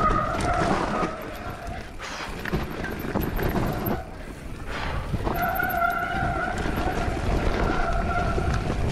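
Mountain bike riding downhill on a wet dirt trail: the rumble and rattle of tyres and frame over the ground, mixed with wind on the microphone. A steady whine comes in briefly at the start and again from about five seconds in.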